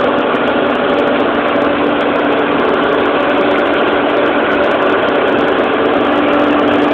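Tractor engine running steadily under load while its boom-arm flail mower cuts through a hedge, an even, unbroken machine drone.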